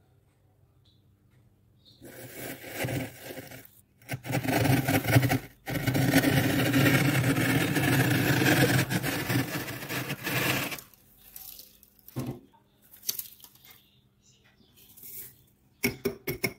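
A glass tumbler's rim scraping thick, flaky freezer frost. The scraping starts about two seconds in and comes as three passes, the longest about five seconds. After that come several short, scattered scrapes.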